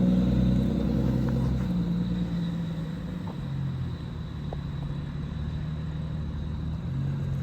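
Car engine running at a steady speed, getting quieter over the first few seconds and then holding at a lower, even level.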